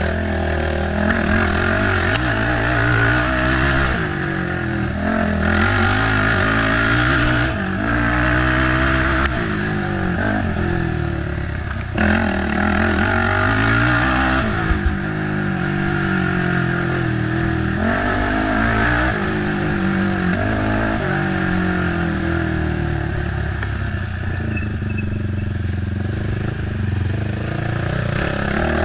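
Race ATV's engine revving hard and falling back over and over as it accelerates and shifts over rough trail, with rattling from the machine and a couple of sharp knocks about midway.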